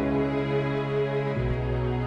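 Background music of slow, sustained chords, changing to a new chord about a second and a half in.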